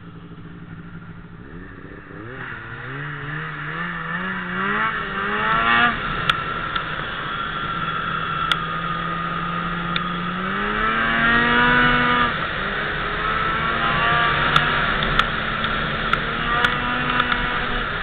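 Ski-Doo Summit 600 SDI snowmobile's two-stroke twin engine idling, then pulling away and accelerating, its pitch climbing in steps, before settling into a steady cruise with a second climb in speed midway. A few sharp ticks sound over the engine.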